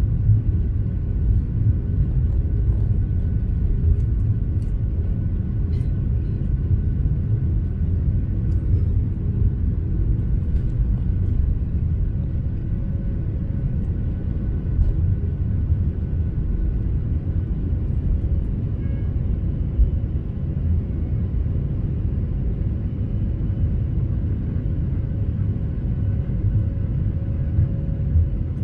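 Boeing 737-800's CFM56-7B jet engines at takeoff thrust, heard inside the cabin over the wing during the takeoff roll, liftoff and early climb: a loud, steady low drone with a faint steady whine above it.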